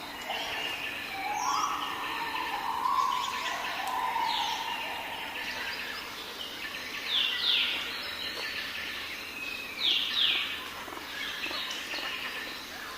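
Wild birds singing: a high call that slides downward, repeated every two to three seconds, with lower warbling phrases in the first few seconds, over a steady outdoor hiss.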